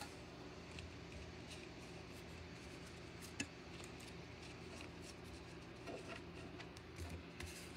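Faint rustle and light taps of cardboard trading cards being handled and stacked on a wooden table, with one sharper tick about three and a half seconds in, over a steady low hum.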